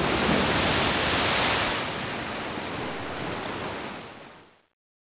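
A large ocean wave breaking: a loud rushing wash of surf that drops somewhat after about two seconds and fades away before the end.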